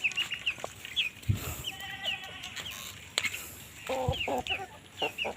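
Farm chickens calling: many short high peeps repeat throughout, with a lower call about two seconds in and another about four seconds in. A couple of soft low thumps come between them.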